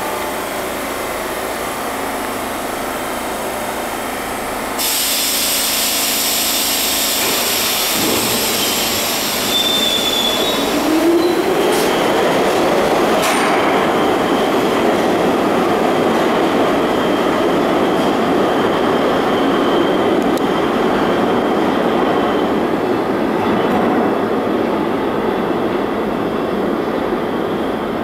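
R62 subway train pulling out of an underground station: a steady rumble of wheels and motors that grows louder about eight seconds in, with a short rising motor whine and a few sharp clicks soon after.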